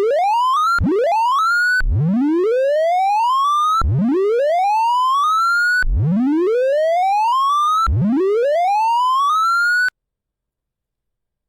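Synthesised tones from the Sound of Sorting program sweeping up in pitch, from low to high, one after another. Two short sweeps are followed by four longer ones, each restarting low the moment the last one peaks, and the sound cuts off suddenly near the end. The rising sweep across the array is the pass that plays once the array is sorted.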